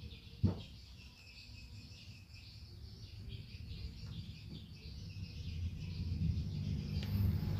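Insects chirping steadily in a high pulsing band, with a low rumble underneath and a single sharp knock about half a second in.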